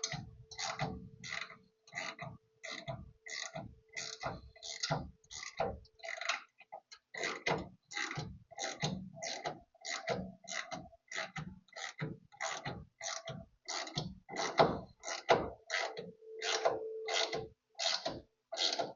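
A hand ratchet wrench swung back and forth to tighten a bolt, its clicking strokes repeating steadily at about two a second. A faint steady hum lies under the strokes at the start and again near the end.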